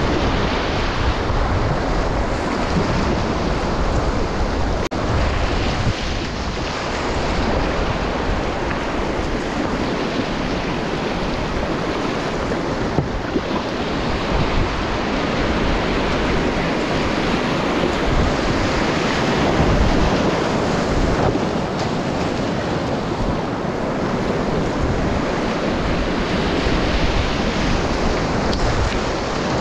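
Steady rush of whitewater in a river rapid, heard up close from a kayak running it.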